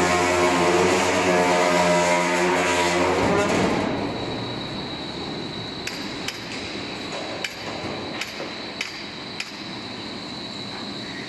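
Floor deck roll forming machine running: a loud motor drone drops away about four seconds in. It leaves a steady high whine and a handful of sharp metal clinks from the rollers and steel sheet.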